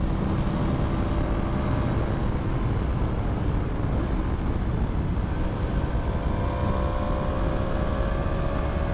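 Yamaha MT-10's 998 cc crossplane inline-four running under way, a steady drone under heavy rushing noise, its pitch climbing slowly in the second half as the bike gathers speed.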